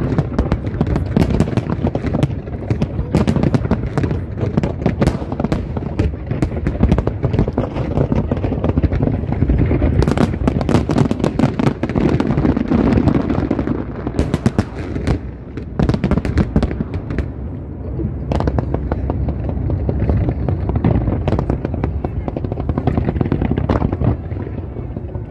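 Large fireworks display: a dense, continuous barrage of sharp bangs and crackling, many shell bursts overlapping, over a steady low rumble.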